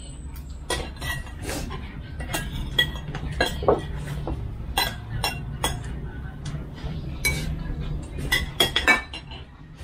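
Metal spoons clinking against ceramic bowls and plates as people eat, a scatter of irregular sharp clinks with a quick cluster of louder ones near the end.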